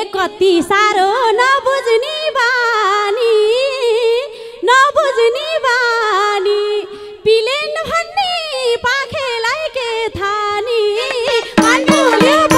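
A woman singing a lok dohori folk melody into a microphone: one high voice winding through many quick ornamented turns, in long phrases with short breaks between them.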